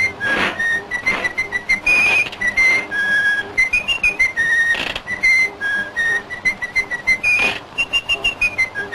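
Intro music: a whistled tune of single clear notes stepping up and down with a slight wobble, over sharp percussive hits.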